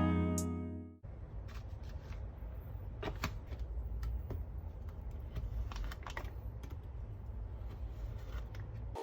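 Typing on a computer keyboard: irregular key clicks over a low steady hum, after a guitar music phrase cuts off about a second in.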